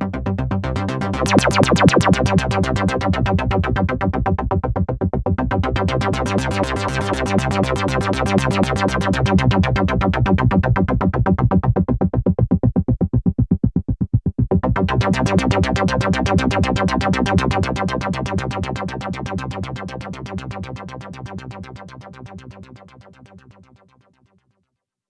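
ASM Hydrasynth digital wave-morphing synthesizer playing a factory preset: a fast, evenly pulsing run of notes over a sustained low tone. Its brightness swells and falls back in waves, dipping briefly about halfway through, before the sound fades away and stops shortly before the end.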